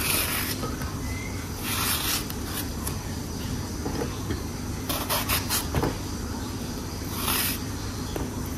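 Kitchen knife cutting through an eggplant on a cutting board: a few separate short scraping strokes, about two seconds apart with a quick cluster midway, over a steady low background hum.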